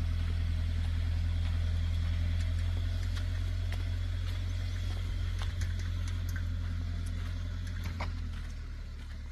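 Daihatsu Terios 4x4's engine running at low revs as the car pulls slowly away uphill, a steady low drone that fades about eight seconds in. Scattered small clicks sound over it.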